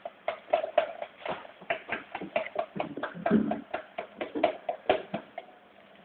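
Spoon clicking against a mixing container while stirring cake batter: quick, uneven clicks about four times a second, dying away near the end.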